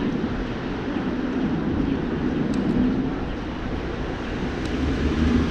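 Street traffic on a wet city road: a steady low rumble of passing vehicles, swelling briefly as cars go by about three seconds in and near the end.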